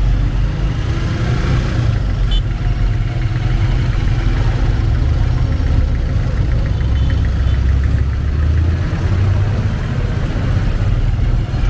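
Motorcycle engine of a tricycle running steadily as it rides along, heard from inside its sidecar with a constant low rumble and road noise.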